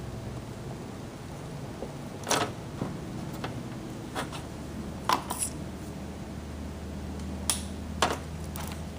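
Several sharp clicks and knocks at irregular intervals, over a steady low hum.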